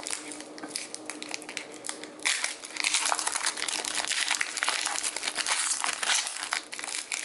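Foil wrapper of a Pokémon trading card booster pack being pulled open and crinkled in the hands: a dense crinkling crackle that gets louder and busier about two seconds in.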